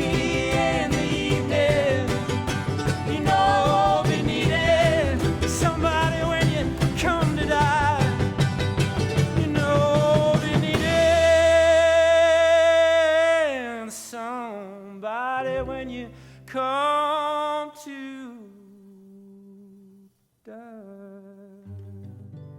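Live folk band with sung vocals and a drum beat playing the end of a song; about eleven seconds in the band stops, leaving a long held note with harmony that bends and falls, a few short final phrases, then faint closing notes as the song dies away.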